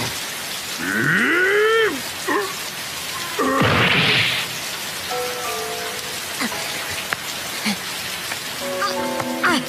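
Anime soundtrack of steady falling rain. About a second in comes a pitched cry that rises and then falls, a short burst of noise follows a couple of seconds later, and from about halfway soft held music notes come in, building into fuller chords near the end.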